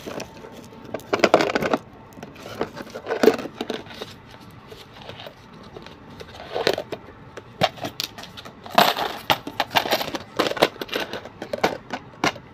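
Dishes and utensils being handled: irregular short clinks and clatters in scattered clusters, busiest in the last few seconds.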